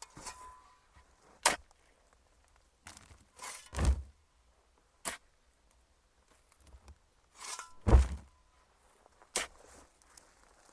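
Shovel digging into dirt: scraping pushes of the blade, two of them ending in heavy dull thuds about four and eight seconds in, with sharp single clicks of the blade in between.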